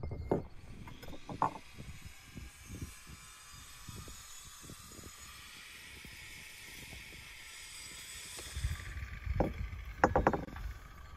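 Glazed clay pot and its lid knocking and clinking as the lid is lifted off and set back. Between the clinks there is a faint hiss while salt is sprinkled by hand over cubes of raw fat in an enamel bowl.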